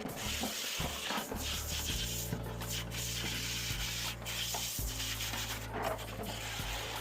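Rough rubbing and scraping strokes, uneven in rhythm, over background music.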